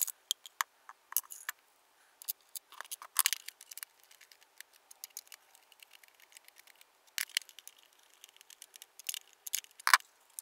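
Scattered small clicks, taps and scrapes of hard plastic as the case of a plug-in power meter is fitted back together and its screws driven with a screwdriver.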